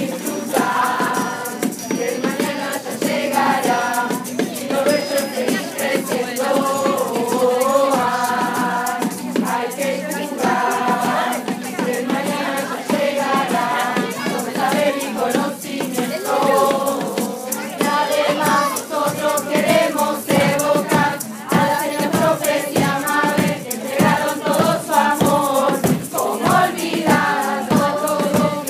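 A group of adult amateur voices singing a song together, accompanied by acoustic guitar, with a rhythmic rattle of shakers.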